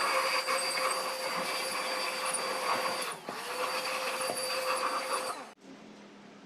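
A power tool's motor running at steady speed with a whining tone over a loud hiss. About three seconds in it briefly slows and picks back up, and it cuts off suddenly near the end.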